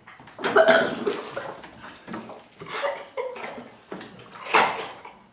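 Stifled, muffled laughter and snorts through hands and a cloth, in short irregular breathy bursts.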